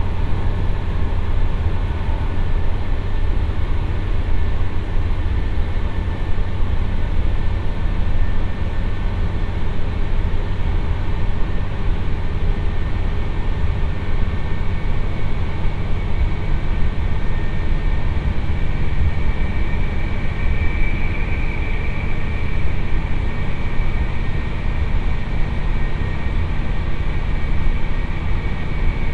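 Chizu Express HOT3500 diesel railcar running at speed through a tunnel, heard inside the passenger cabin as a steady deep rumble of engine and wheels on rail. A faint high whine grows stronger about two-thirds of the way through.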